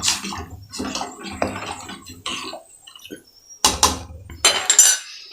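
Tamarind-tomato rasam liquid poured into a cooking pot, splashing, with several sharp knocks of metal vessels, the loudest in the second half.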